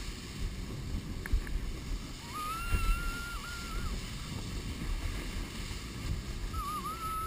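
Canoe hull sliding over packed snow while being towed, a steady low rumble with wind on the microphone. A high, wavering whine comes in about two seconds in, lasts a couple of seconds, and returns near the end.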